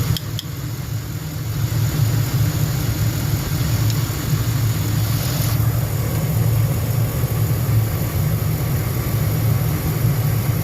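2004 Lincoln Navigator's 5.4-litre V8 idling steadily as it warms up after a coolant hose replacement. Two light clicks come about half a second in, and a faint hiss stops about halfway through.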